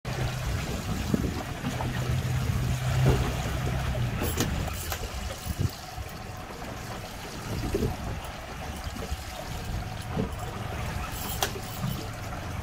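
A fishing boat's engine running, with water noise around the hull. The engine's steady hum drops away about four seconds in, and a few sharp clicks come near the middle and near the end.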